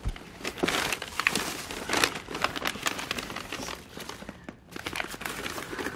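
Rummaging through a handbag: irregular rustling and crinkling with small clicks and clatters as tangled cords and papers are pulled out and handled.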